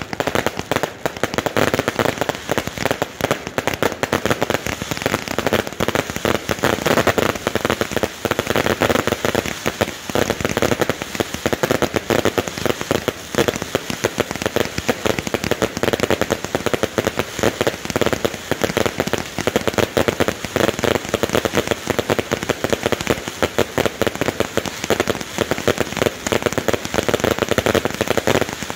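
Consumer firework cakes going off: a dense, unbroken crackle of countless small rapid reports.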